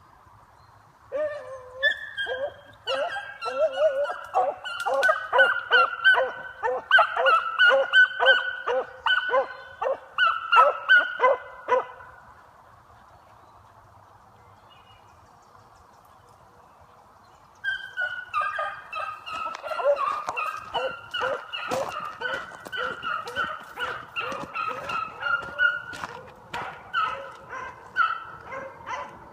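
Several beagles baying together, their calls overlapping quickly, as hounds do when running a scent trail. The baying stops for about five seconds midway, then picks up again.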